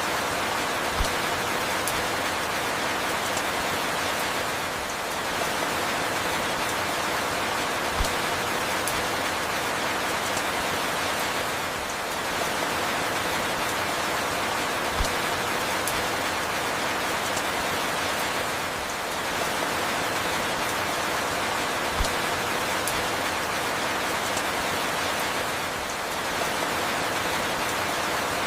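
Steady rain falling, an even hiss with a soft low knock about every seven seconds.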